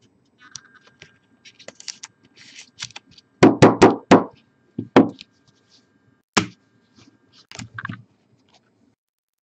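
Rigid plastic top loaders holding trading cards clicking and knocking against each other and the tabletop as they are handled: a quick run of four or five sharp knocks about three and a half seconds in, then single knocks about a second and about two and a half seconds later, with soft plastic rustling between.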